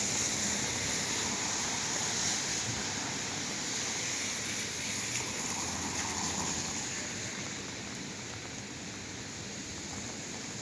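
Steady wash of city traffic on rain-wet streets, tyres hissing on the wet road with rain falling. It eases slightly after about seven seconds.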